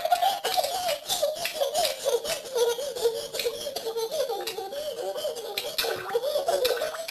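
A high-pitched voice laughing without a break, its pitch wavering up and down.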